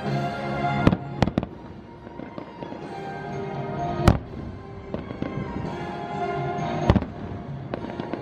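Fireworks shells bursting in a series of sharp bangs, the loudest about four seconds in, with music playing throughout.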